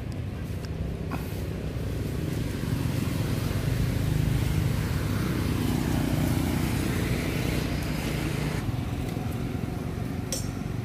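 A motor vehicle's engine running, growing louder over the first few seconds and then dropping off about eight and a half seconds in.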